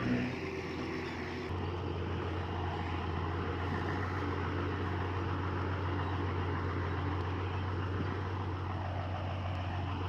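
Diesel engine of heavy earthmoving machinery running steadily under a wash of mechanical noise. Its low hum grows louder about a second and a half in.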